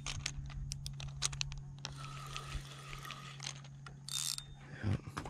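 Spinning fishing reel being cranked to bring in a hooked small sea trout, its gears and handle giving many quick, irregular clicks.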